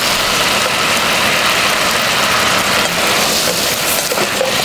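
Shrimp and squid sizzling in a pot over a portable gas stove: a steady, even hiss.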